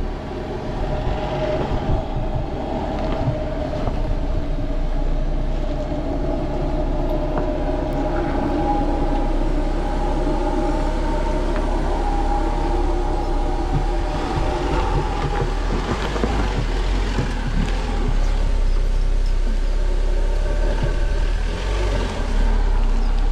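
Off-road 4x4 engine running with a steady low rumble, its pitch wavering slightly.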